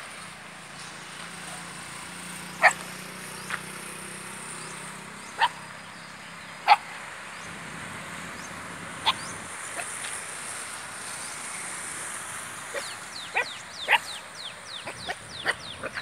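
Dog barking: single short, sharp barks a few seconds apart, then a quicker run of short, higher barks near the end.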